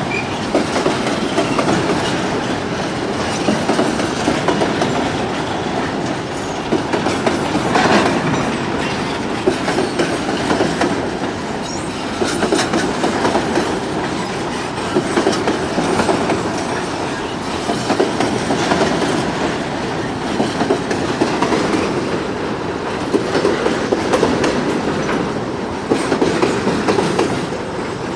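Freight train of boxcars rolling past close by: a steady rumble with the clickety-clack of the wheels over rail joints and scattered short knocks.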